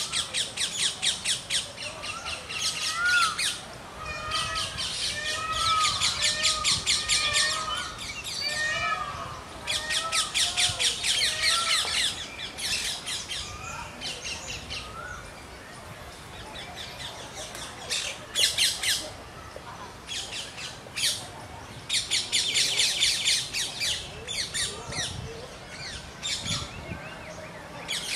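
Rose-ringed parakeets screeching in bursts of rapid, harsh, repeated notes, several a second, each burst lasting a couple of seconds. Softer, lower chirps from another bird come in between, mostly in the first ten seconds.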